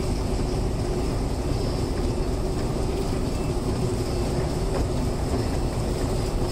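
Steady low rumble and hum of a long metro escalator running, with a faint high whine over it, echoing in the underground station hall.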